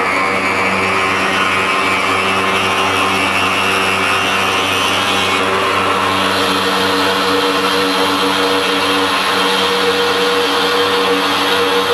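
CNC machine running and cutting stone, a steady motor whine over grinding noise; about halfway through the grinding turns brighter and sharper.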